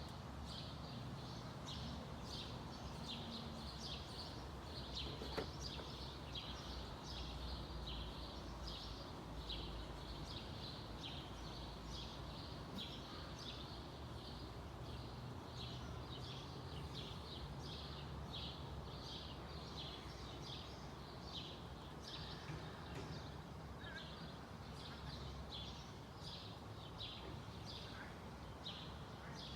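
A small bird chirping over and over, short high chirps about twice a second, over a low steady rumble.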